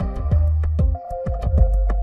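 Background music with a steady electronic beat, deep bass and held synthesizer tones.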